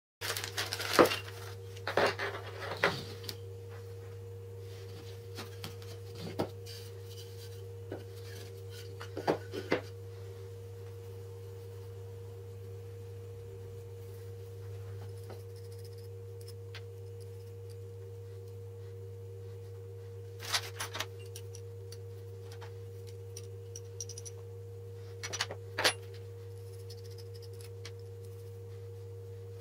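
Small hardware handled on a wooden tabletop: scattered clicks and taps of bolts, nuts and plastic bearing wheels being picked up and fitted together, loudest about a second in and again near the end. Under it runs a steady hum, a low tone with a higher one above it.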